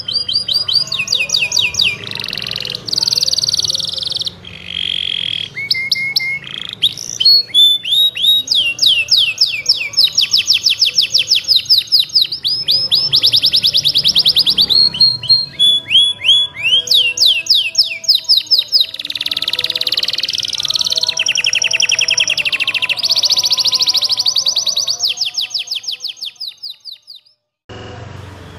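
Domestic canary singing a long, continuous song of fast trills, each a run of rapidly repeated notes held for a few seconds before switching to another phrase. The song breaks off briefly near the end.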